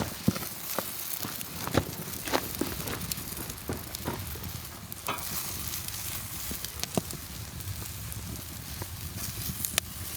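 Food sizzling as it cooks over a wood campfire, the fire crackling with scattered sharp pops.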